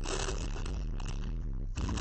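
Wind buffeting the microphone: a rough, steady rustling noise with a low rumble underneath, dipping briefly near the end.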